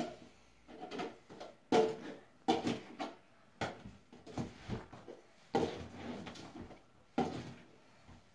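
Clear plastic cups clacking as they are picked up from the wooden floor and nested into a stack, a series of sharp taps and rattles about one a second.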